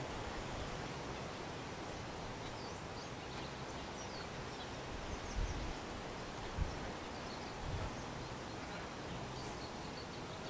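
Steady outdoor background noise with faint, short high chirps scattered through it, and a few brief low thumps at about five, six and a half and seven and a half seconds in.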